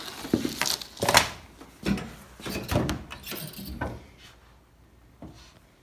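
Handling noise: a run of knocks, clunks and rustling as wiring parts and their packaging are picked up and put down, over about four seconds, then it dies away.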